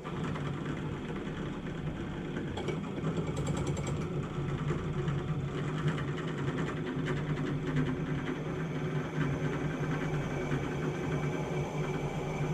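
Electric drill switched on suddenly and running steadily with a low hum, drilling a hole into solid steel.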